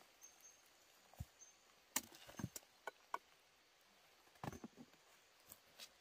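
A few sharp woody knocks and snaps as freshly dug roots and a digging stick are handled. The loudest is about two seconds in, with a small cluster just after it and another group of knocks about four and a half seconds in.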